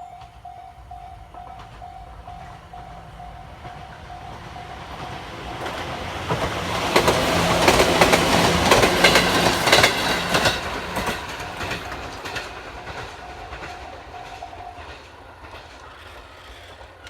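Japanese level-crossing warning alarm ringing in an evenly repeating ding while a Chichibu Railway train passes over the crossing, its wheels clattering over the rail joints, loudest in the middle. The alarm is covered by the train, then goes on faintly and stops near the end.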